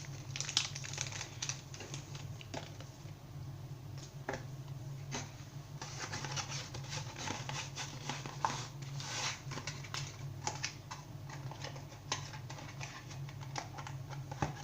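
Irregular small plastic clicks and light rustling as Beyblade parts and their packaging are handled, over a steady low hum.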